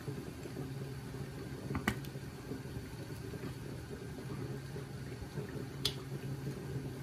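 A steady low mechanical hum, like a running kitchen appliance, with two short sharp clicks about four seconds apart.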